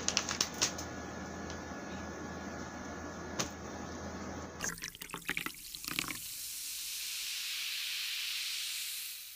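A few sharp clicks and crinkles over a steady low hum, then from about six seconds a long rushing hiss, like running water, that swells and slowly fades.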